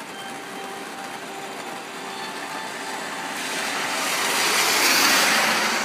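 Steady rain, with a car driving past on the flooded road: its tyres' hiss on the wet asphalt swells from about three seconds in, is loudest near five seconds, and fades.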